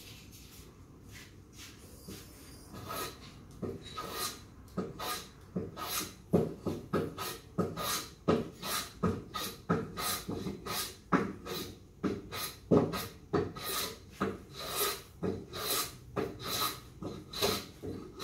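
Sharp hand plane shaving the corner of a 6-by-6 wooden beam in quick repeated strokes, about two a second. The strokes are faint at first and grow louder after about three seconds.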